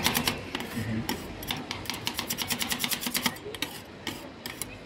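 Two metal spatula blades chopping and scraping mix-in pieces on the frozen steel plate of a rolled-ice-cream pan: rapid, irregular metallic clicks and taps, several a second.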